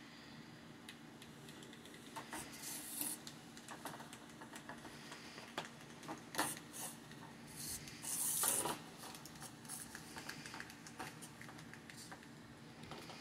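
Kittens scuffling and pouncing on a bare wooden floor around a remote-control toy mouse: irregular scrapes, scratches and light taps, with the loudest scuffle about eight seconds in.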